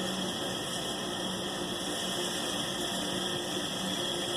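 Steady background hiss with a faint low hum, unchanging throughout; no shot is heard.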